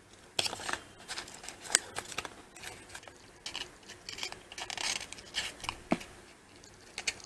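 Paper and cardboard being handled close up for a craft: an irregular run of crisp clicks, snips and scrapes that starts about half a second in.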